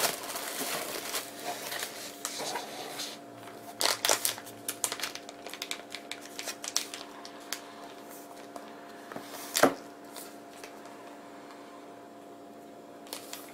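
Cardboard box and packaging being handled during an unboxing: rustling and crinkling of cardboard, paper and a plastic sleeve, with scattered clicks and one sharper click about ten seconds in.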